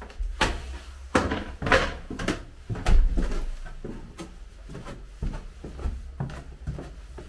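Footsteps in a small hard-surfaced room, about two a second, with a heavier thud about three seconds in.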